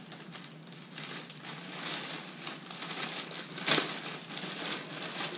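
Thin plastic packaging bag crinkling and rustling as it is gripped and pulled, in an irregular run of small crackles with one louder crackle about two-thirds of the way through.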